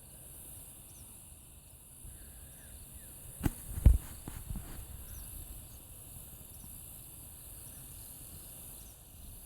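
Steady high-pitched drone of insects with faint small chirps over it, and two or three sharp thumps about three and a half to four seconds in.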